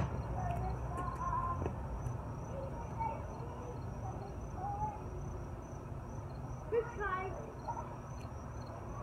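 Insects chirping steadily in the background: a constant high trill with faint pips repeating evenly. There is one sharp thump right at the start, and a few brief bits of distant voices, the loudest a short call about seven seconds in.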